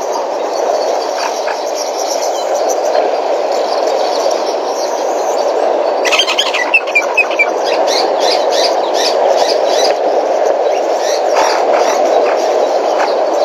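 Water sloshing and splashing as African elephants wade and bathe in a waterhole. About six seconds in there is a quick run of short high chirps, then scattered sharp splashy ticks for a few seconds.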